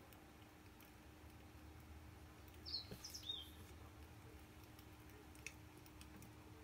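Faint crackling of a wood campfire, heard as sparse small pops over a steady low hum, with a few short high bird chirps about three seconds in.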